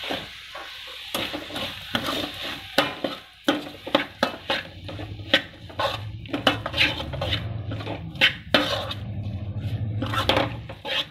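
Metal spoon scraping and knocking against a metal kadai as chopped onions are stirred and sautéed in oil, with a light sizzle underneath. The clicks and scrapes come quickly and irregularly, one every few tenths of a second.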